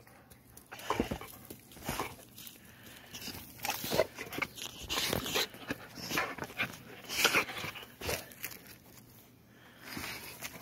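An excited dog playing and jumping about close by, paws scuffling in sandy dirt, with sounds from the dog itself, in irregular bursts.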